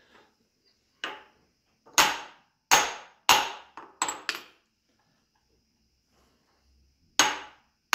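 Brass hammer tapping a steel workpiece in a milling machine vise, seating it back down onto the parallels to counter the jaw lift from clamping. One light tap, then five sharp metallic taps in quick succession, a pause of about three seconds, and two more taps near the end.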